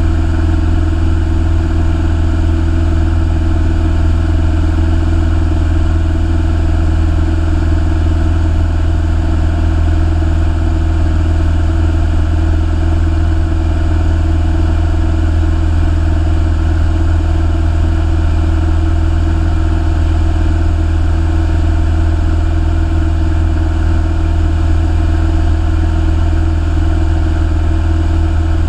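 Steady drone of a single-engine light aircraft's piston engine and propeller in flight, heard from inside the cockpit: a strong low hum that does not change.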